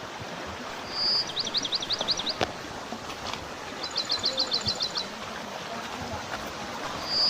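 Steady rush of a waterfall's falling water, with a small bird singing twice over it: each phrase is a short high whistle followed by a quick run of about eight repeated chirping notes.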